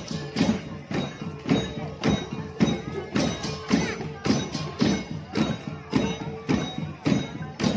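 Balinese okokan parade ensemble: large wooden okokan clappers, kendang drums and cengceng cymbals played together in a steady, loud beat of about two strokes a second.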